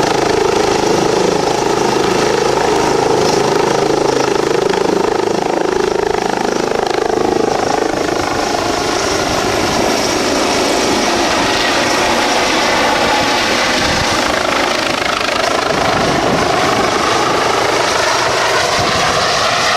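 Eurocopter EC135 twin-turbine helicopter running, a loud steady rotor and turbine sound. Its tones rise in pitch over the last few seconds.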